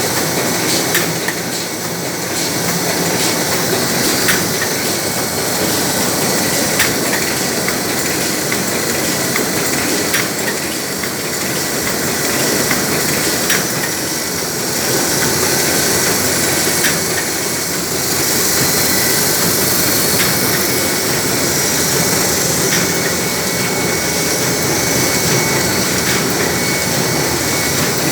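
Komori four-colour offset printing press running steadily: a dense, even mechanical noise with occasional faint clicks.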